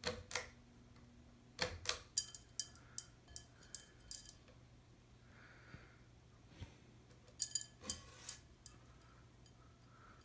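Ceiling fan pull chain being tugged, with the speed switch clicking and the small metal bead chain rattling in several short bursts. A faint steady low hum runs underneath.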